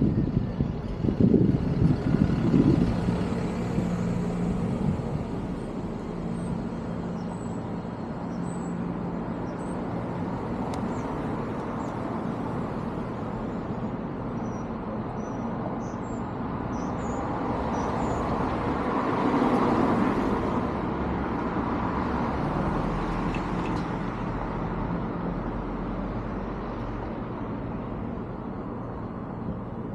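Steady road and traffic noise heard while riding. It swells as a vehicle passes about twenty seconds in, and there are a few low thumps in the first few seconds.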